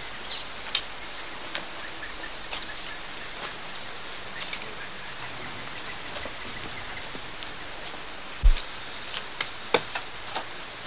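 Rain falling steadily, with scattered drips and taps. A single dull thump about eight and a half seconds in.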